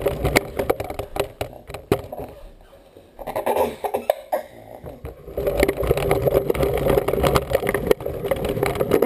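A toddler's push toy rolling over the floor, its wheels and frame rattling with many quick clicks and knocks. It goes quieter for a moment about three seconds in, then clatters steadily again.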